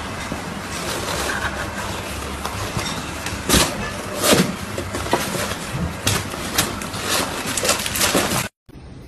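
Cardboard box flaps rustling and knocking in short, irregular bumps as a cat presses and pushes at them, over steady background noise.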